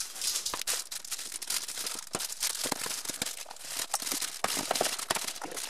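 Chocolate wrapper crinkling while squares of white chocolate are snapped off and dropped into a stainless steel mixing bowl, a run of crackles with many small clicks.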